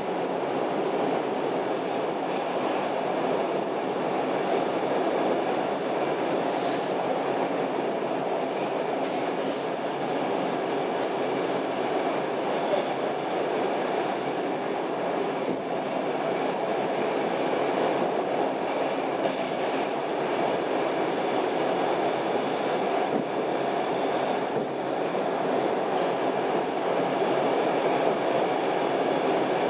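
Stockholm Metro C6 subway car running at speed, heard from inside the car: a steady rolling rumble of wheels on rails, with one short high hiss about seven seconds in.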